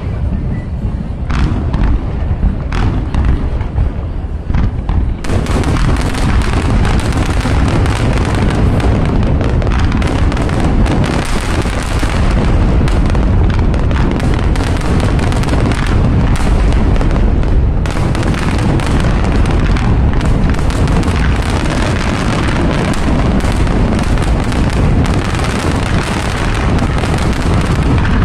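Fireworks bursting: a few separate booms at first, then from about five seconds in a dense, continuous barrage of overlapping bursts and crackle.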